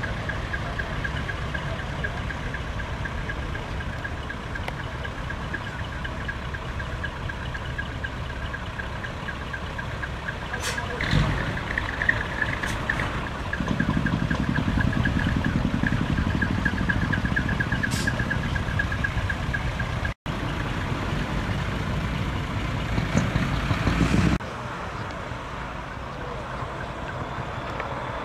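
Heavy diesel trucks with split exhaust manifolds (manifold-split, 'mani-wari') running at low speed, a steady low rumble that grows louder for about ten seconds in the middle as a truck comes close. A fast, high-pitched pulsing tone runs alongside for most of the first two-thirds, with a few sharp clicks.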